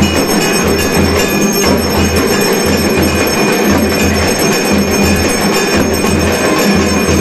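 Temple bells ringing continuously over a steady low drum beat, about two beats a second: the din of bells and drum that goes with the waving of the arati lamp.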